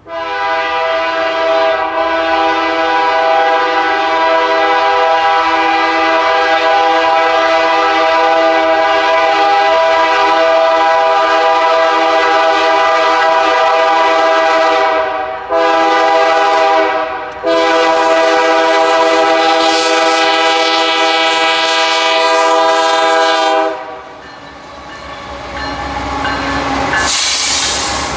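Diesel freight locomotive's multi-chime air horn blowing a very long blast, a short one and another long one. After the horn stops, the train's rumble and wheel noise rise as it passes close by.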